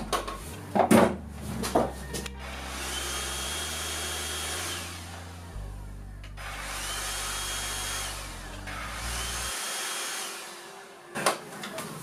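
Grundig VCH 9623 cordless stick vacuum switched on and running with its repaired turbo brush, in two stretches of about four seconds each, with a high whine over the motor noise. A few handling clicks and knocks come before and after.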